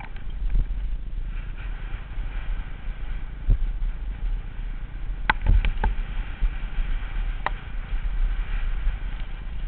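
Downhill mountain bike riding fast over a rough dirt trail, heard from a helmet-mounted camera: a steady low rumble from the ride, with a few sharp knocks and rattles from the bike over bumps, the strongest cluster about five and a half seconds in.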